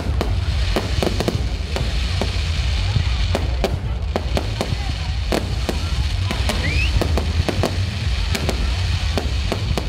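Fireworks display: many sharp bursts at irregular spacing over a continuous low rumble, with a short rising whistle about seven seconds in.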